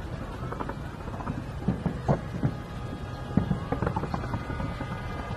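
Fireworks display bursting: an irregular run of low thuds and pops, several in some seconds, over a steady background rumble.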